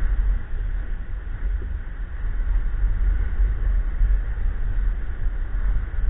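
Wind buffeting the microphone of a camera carried in a paraglider's flight, heard as a steady low rumble with a muffled hiss above it.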